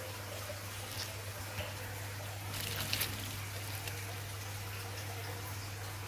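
Dry harvested swiftlet nests rustling and crackling as they are handled: a few short crackles, most of them about two and a half to three seconds in, over a steady low hum.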